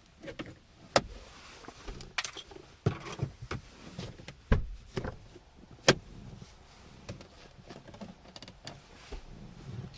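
Phillips screwdriver working a screw out of the plastic door-lock switch trim: scattered clicks and small rattles of metal on screw and plastic, with two sharp clicks about a second in and about six seconds in.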